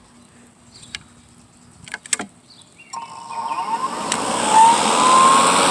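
A few clicks of the controls, then about three seconds in the Kobalt 40-volt brushless cordless lawn mower's motor starts. It spins up with a rising whine and settles into a steady high running whine as the blade comes up to speed.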